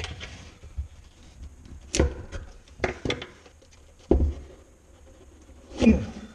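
A hinged shoe last being worked out of a leather shoe: a handful of separate knocks and thumps as it is pried and pulled free, the loudest near the end.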